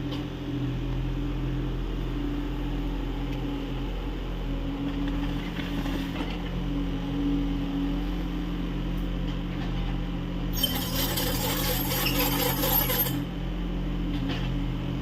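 Kubota U30 mini excavator's diesel engine running steadily while digging. About ten seconds in, a loud harsh rasping noise lasts for about two and a half seconds, then stops suddenly.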